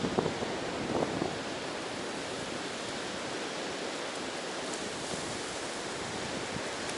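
Ocean surf washing steadily onto a beach, with a few brief louder splashes in the first second or so.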